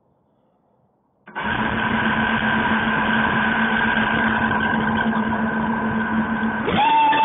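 QAV250 racing quadcopter's brushless motors start spinning suddenly about a second in and run steadily at idle with a steady hum and propeller noise. Near the end the pitch rises sharply as the throttle comes up for takeoff.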